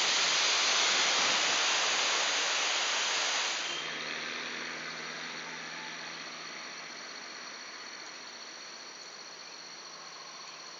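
Small waterfall rushing over rocks, a loud, even rush of water. About four seconds in it cuts to a much quieter hush with a steady high whine from insects.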